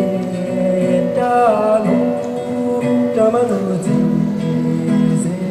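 Music: a song with plucked guitar and singing.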